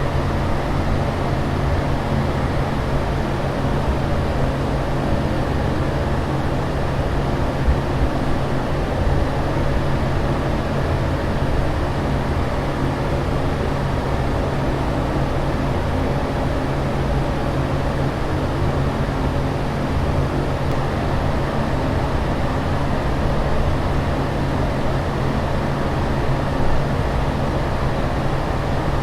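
Aircraft cabin noise in flight: a constant rushing drone of engines and airflow with a steady low hum, unchanging throughout.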